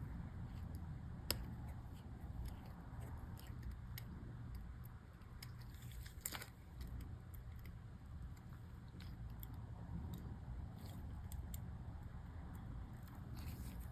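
Faint, scattered small clicks and ticks of tiny plastic MacBook key parts being handled and fitted into the keyboard, with two sharper clicks about a second in and about six seconds in, over a steady low hum.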